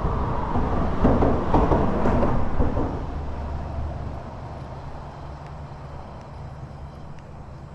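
A vehicle driving past on the road: a rushing pass that is loudest about one to three seconds in, then fades away slowly, leaving a low engine hum.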